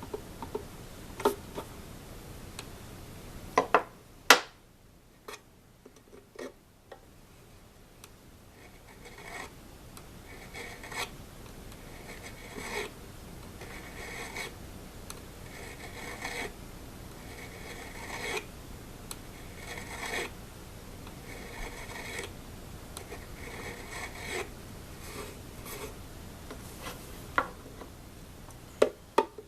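A hand tool rubbing back and forth on a mandolin's metal fret, in repeated strokes about one a second, working out a high spot or scratch. A few sharp clicks come before the strokes start and again near the end.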